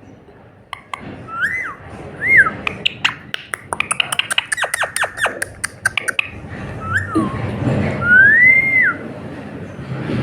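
Pet parrot whistling short notes that rise and fall, with a quick run of sharp clicks, about four or five a second, in the middle, and a longer rising-then-falling whistle near the end.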